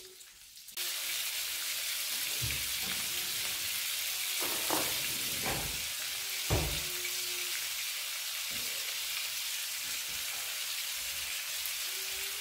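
Head-on prawns and garlic frying in olive oil in a pan, a steady sizzle that starts about a second in. Several short knocks come through it as a fork turns the prawns against the pan.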